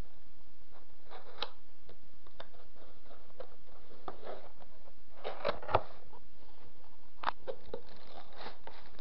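A cardboard keyboard box and its plastic wrapping being handled and opened: scattered scrapes, rustles and light clicks, busiest in the middle, with a sharper knock about five and a half seconds in.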